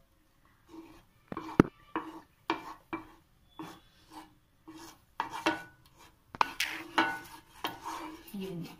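Wooden spatula scraping across a nonstick frying pan as it spreads melted butter, in short back-and-forth strokes about two a second. There is one sharp knock about a second and a half in.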